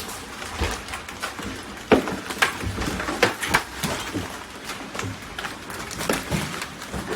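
Large hailstones striking hard surfaces: irregular sharp knocks and cracks, several a second, over a steady hiss of falling hail and rain.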